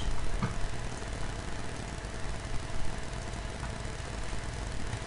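Steady low background hum and hiss from the recording setup, with a couple of faint mouse clicks, about half a second in and near the end.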